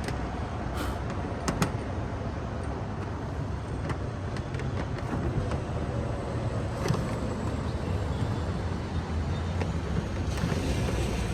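Steady low rumble of road traffic, with a few light clicks and taps.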